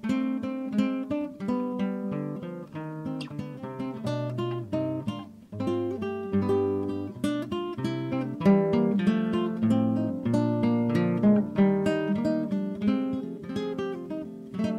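Background acoustic guitar music, with notes plucked and strummed in quick succession.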